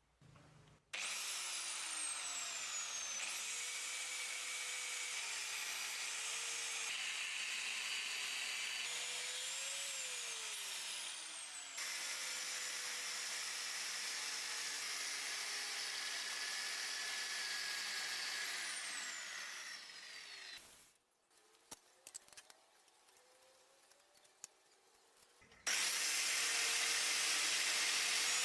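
Power tool running under load, its motor pitch sliding down and back up several times; it stops about twenty seconds in, leaving a few light clicks and knocks, then starts up again near the end.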